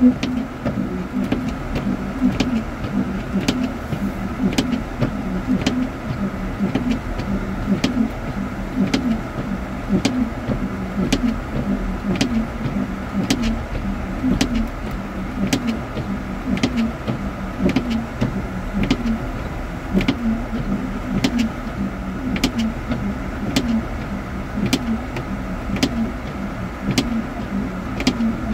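Car cabin noise while driving slowly on snow-covered streets: a steady engine and road hum with the windshield wipers sweeping back and forth, and sharp ticks about once a second.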